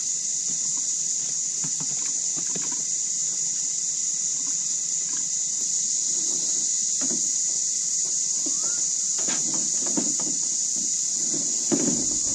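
Steady high-pitched drone of cicadas, with scattered knocks and scrapes as a kayak is shifted about on a 4WD's roof rack; the loudest thump comes near the end.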